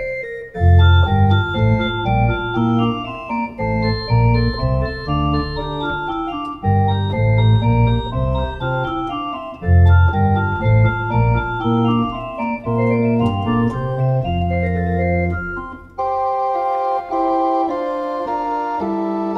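Two-manual console organ playing a slow piece of sustained chords over held low bass notes. About 16 seconds in, the low bass drops away and the music goes on in a brighter, higher register.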